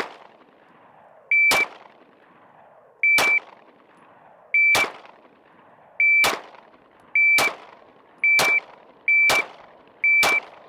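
Shot-timer start beeps, each answered a split second later by a single shot from a Beretta PX4 Storm 9mm pistol, about nine in all. The beep-and-shot cycles come faster and faster, from about one every 1.6 seconds down to about one a second near the end.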